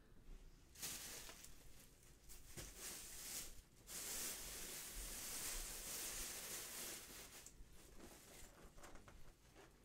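Thin plastic carrier bag rustling and crinkling as hands dig into it and lift out foam takeaway boxes, with a short break a little over a third of the way in.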